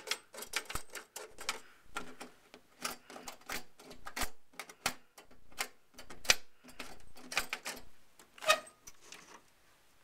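Irregular clicks, taps and scrapes of large thumbscrews being turned out by hand and the IBM PS/2 Model 80's case cover being handled and opened. There is a sharper knock a little past six seconds and another near eight and a half seconds.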